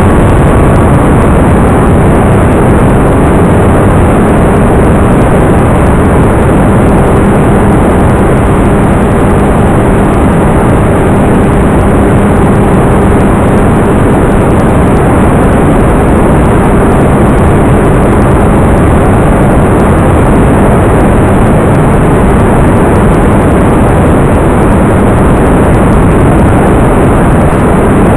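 Loud, steady rushing of wind and propeller noise, the kind picked up by a camera riding on an FPV model aircraft in flight. A faint steady hum joins it from about six seconds in.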